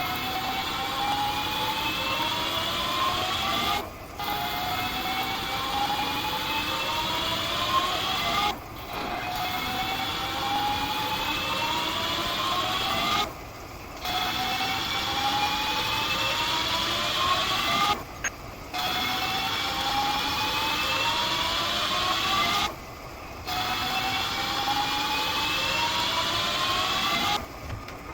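Metal lathe running a series of cutting passes, each a few seconds long with a whine that rises steadily in pitch. Short pauses break it about every four and a half seconds.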